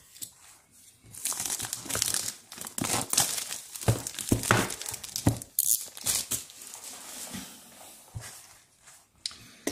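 Clear plastic wrapping being slit with a small blade and stripped off a cardboard smartphone box. It crinkles and tears with many sharp crackles, loudest from about one to six seconds in, then eases to lighter rustling.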